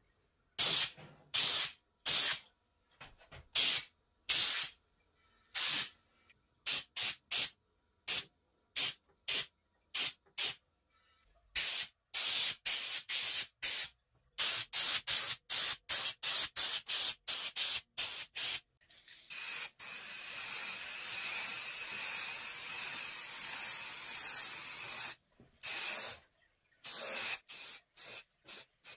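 Spray gun spraying finish in dozens of short hissing bursts, then one continuous spray of about five seconds, and a few more short bursts near the end.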